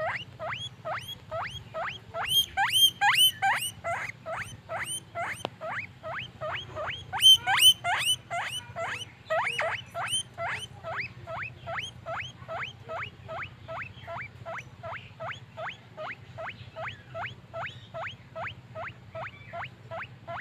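Guinea pig wheeking: a rapid, even series of short rising squeaks, about three a second, growing louder twice along the way.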